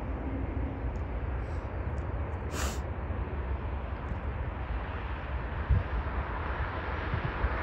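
Wind buffeting the microphone in gusts over the distant running of a jet airliner on the runway, which grows louder toward the end. A brief high-pitched chirp about two and a half seconds in.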